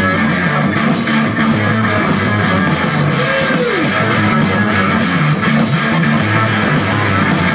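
Live rock band playing loudly, with electric guitars and bass over steady drum and cymbal hits. About three seconds in, one note bends up and then slides down in pitch.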